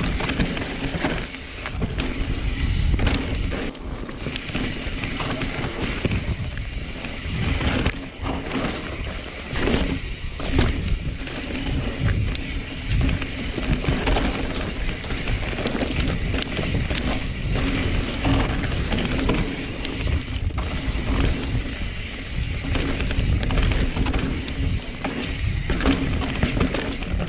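Mountain bike riding down a trail: the rear hub's freehub ratchet clicks and buzzes while coasting, over a steady low rumble and rattle of tyres and bike on the dirt.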